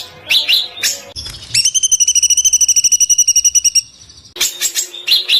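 Small songbird singing: a few sharp chirps, then a fast, even trill of about eleven notes a second held at one pitch for about two seconds, then more quick chirps near the end.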